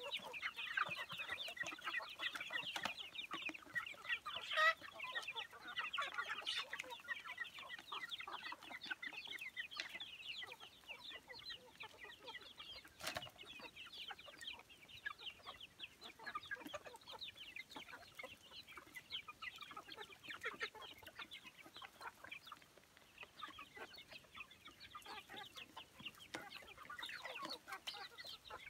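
A flock of young chickens feeding, calling constantly with many short, high chirps that overlap. The calling is thickest at first and again near the end, with a few sharp clicks in between.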